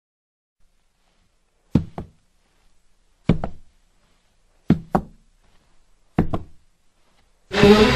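Four double knocks, each pair a quick knock-knock, coming at even intervals of about a second and a half. Music comes in just before the end.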